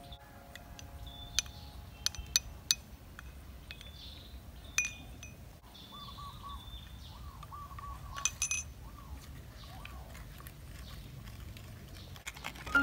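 A spoon clinking against small dishes a few times as seasonings are spooned out, each clink short with a brief ring: several about two seconds in, one near five seconds, and a quick cluster near eight and a half seconds. Faint bird calls sound between the clinks.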